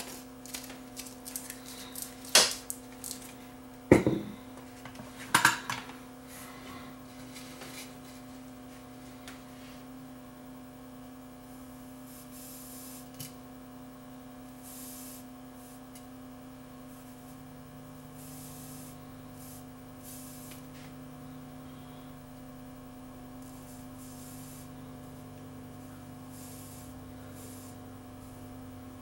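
A few sharp clicks and knocks in the first six seconds, loudest about four seconds in, as the plastic cap is screwed onto a bottle of liquid flux and the bottle is handled on the bench. After that only a steady low electrical hum while the chip's pins are soldered by hand.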